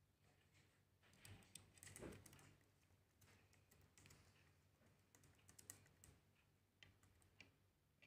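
Near silence broken by faint light clicks and taps from a cockatiel's claws and beak on the tabletop and plate as it walks and pecks: a small cluster a second or two in, then a few single ticks near the end.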